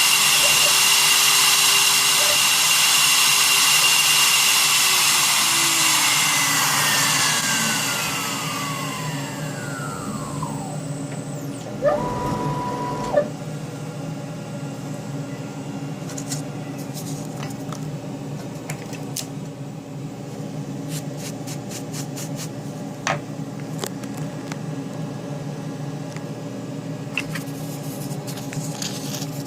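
Small CNC machine's spindle motor whining at high speed, then switched off and spinning down with a falling whine from about six seconds in. A brief tone follows about twelve seconds in, then a steady low hum with scattered clicks.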